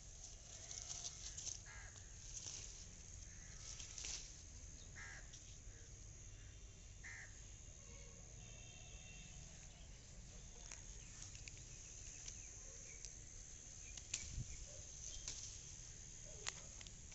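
Crows cawing a few times, short single calls in the first half, over a steady high insect drone. Scattered rustles and clicks come from leaves being handled close to the microphone.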